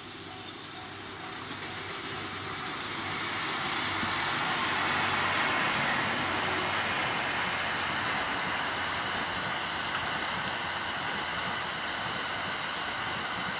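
A train running past on the line: the wheel-and-rail noise builds over the first four or five seconds, then holds loud and steady.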